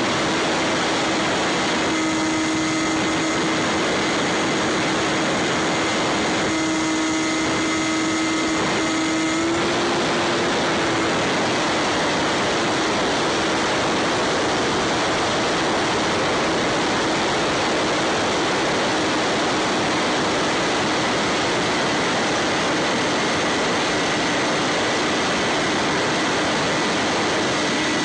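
Bixler 3 foam RC plane in flight, heard through its onboard camera: a steady rush of air with the electric motor and propeller humming under it. The hum takes on a richer, buzzier tone twice in the first ten seconds, then rises slightly in pitch and settles.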